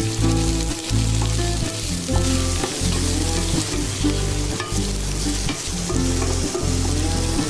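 Food sizzling in hot oil as it is stirred and tossed in a pan, with steady frying hiss, over background music with a low bass line.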